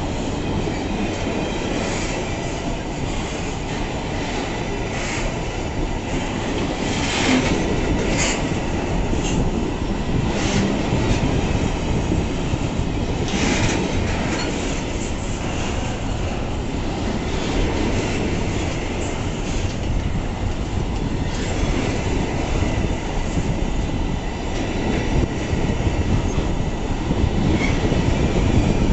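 Wagons of a pulp freight train rolling past close by: a steady heavy rumble of steel wheels on rail, with a sharp clack over the rail joints every few seconds.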